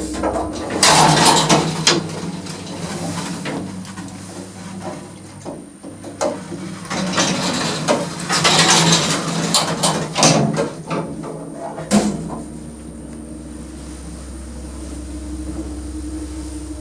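Old electric lift stopping at a floor: the steady low hum of the car travelling fades about a second in, the doors clatter and bang open and, some seconds later, shut again, then the hum of the motor and moving car comes back about twelve seconds in.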